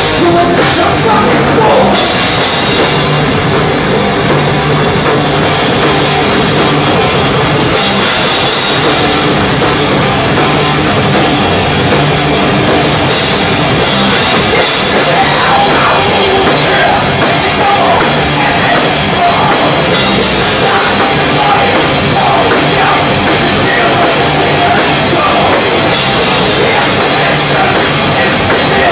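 Live thrash metal band playing at full volume, with the drum kit up front: rapid drumming and repeated cymbal crashes.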